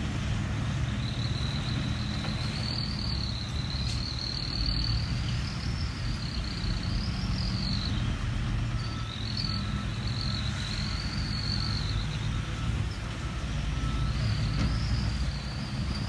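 Heavy diesel engines of a Hyundai dump truck and a bulldozer running steadily while the truck's raised bed tips its load of dirt. A high insect buzz rises and falls in pitch over the engines, fading out at times.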